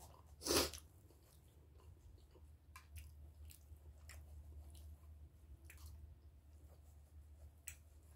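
Someone eating: quiet chewing and a knife and fork cutting through food in a dish, with scattered light clicks and one louder noise about half a second in.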